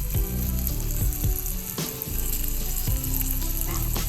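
Turkey breast pieces frying in hot oil in a pan, a steady sizzle broken by a few sharp clicks.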